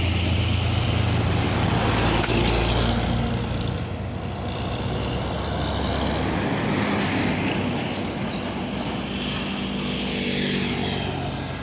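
Heavy diesel trucks passing close on a highway: engine drone and tyre noise that swell as a container-hauling tractor unit goes by, then fade as it drives off.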